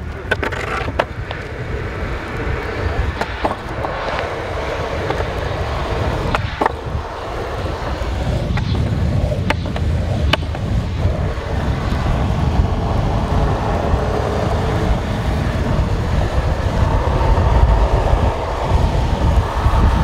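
Downhill longboard wheels rolling fast on asphalt: a steady rushing noise with a deep rumble, growing louder as the ride picks up speed. A few sharp clicks come in the first half.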